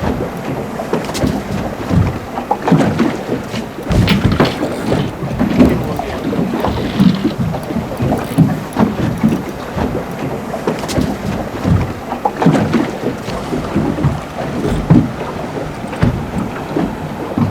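Small boat moving on the water: uneven splashing and knocking against the hull, with wind on the microphone.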